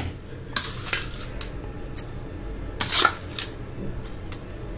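A steel spoon scraping and clinking against the inside of a stainless-steel mixer-grinder jar of thick ground chutney as fried urad dal is added. There are a handful of separate scrapes and taps, the loudest about three seconds in.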